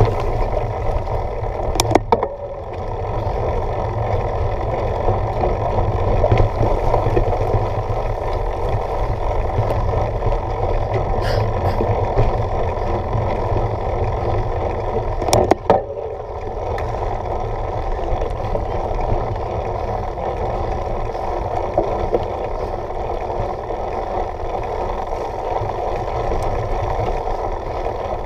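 Mountain bike riding fast over a dirt forest trail: a steady rumble and rattle of tyres and frame on rough ground, with a few sharp knocks along the way.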